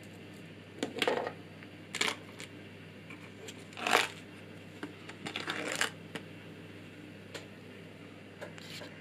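Small hard objects clicking and rattling in scattered bursts, about half a dozen over several seconds: small electronic parts being handled and sorted through to find a diode.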